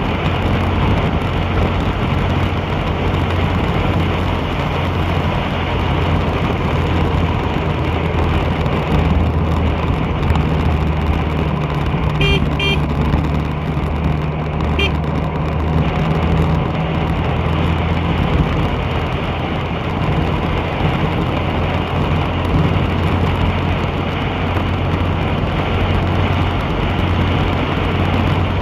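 Moving vehicle on a wet road: a steady low engine hum under a continuous rushing of wind and tyre noise. A few short high horn beeps sound about twelve seconds in and again about fifteen seconds in.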